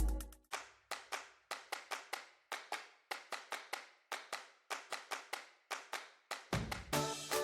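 Sparse passage of electronic music: sharp percussive clicks in a steady rhythm, about four a second, with no bass or melody. Near the end the full music comes back with a bass line and pitched tones.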